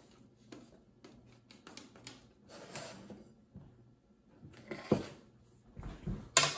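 Faint, scattered light clicks and knocks of hands handling sliced turkey at a meat slicer, with a sharp knock about five seconds in and a louder clatter near the end as a clear plate is brought over.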